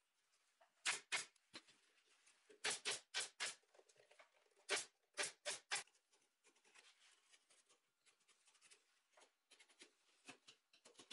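Pneumatic upholstery staple gun firing staples through leather into a chair frame: about ten sharp shots in quick groups over the first six seconds. After that, faint rustling as the leather is handled.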